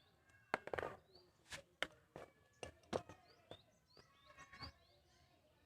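About ten irregular sharp clicks and knocks, spread unevenly over a few seconds, as of small hard parts being handled. Faint bird chirps in the background.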